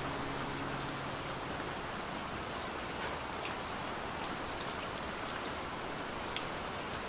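Steady rain, an even hiss with scattered louder drops ticking through it. A last low note of music dies away in the first second.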